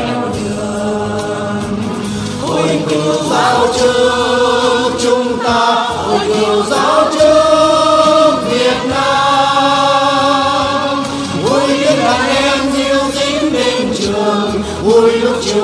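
Two men's voices singing a Vietnamese song together, with long held notes.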